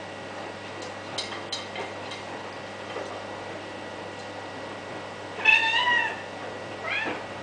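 A white kitten meows: one long call in the second half, then a shorter call near the end. A few light clicks come about a second in.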